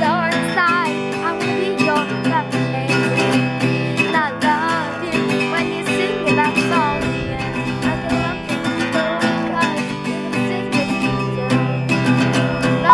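Acoustic guitar strummed steadily with a young woman singing over it.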